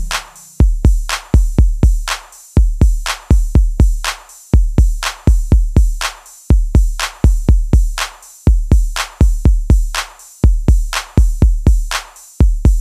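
Background music: an electronic drum-machine beat of deep bass kicks and sharp hits in a steady pattern that repeats about every two seconds.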